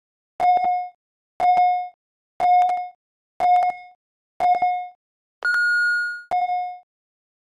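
Workout interval timer beeping a countdown: short beeps of one pitch about once a second, then a longer, higher tone about five and a half seconds in that signals the start of the set, followed by one more short beep.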